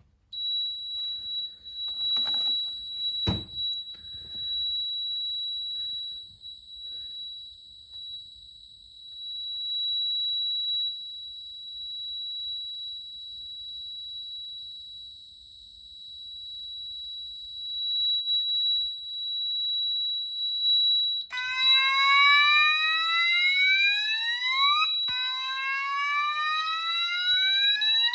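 Alarm sounders on test: a continuous high-pitched alarm tone. About two-thirds of the way in a second sounder joins it with a slow rising whoop, each sweep climbing for nearly four seconds, twice. There is a single knock about three seconds in.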